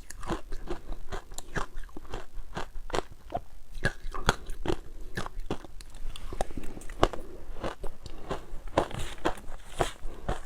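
Ice being bitten and chewed close to the microphone: a steady run of sharp, irregular crunches, several a second.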